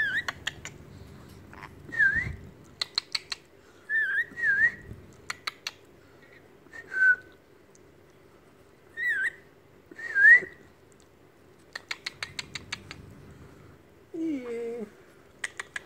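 Small yellow pet parrot whistling a series of short notes that dip and then rise in pitch, with quick runs of clicking chirps between them. Near the end comes a lower, wavering call.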